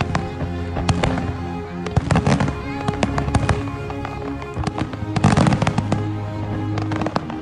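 Fireworks going off: a rapid series of pops, cracks and bangs in clusters, thickest about two seconds in and again around five seconds, with music playing underneath.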